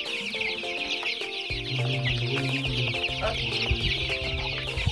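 A large brood of chicks cheeping all at once, a dense stream of short, high, falling peeps, over background music whose bass line comes in about a second and a half in.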